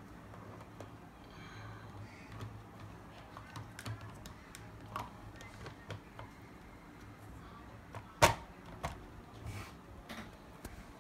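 Hard plastic toys clicking and knocking together as a toy excavator is handled and set onto a toy dump truck's plastic bed: scattered light clicks, with one sharp knock about eight seconds in. A low steady hum runs underneath.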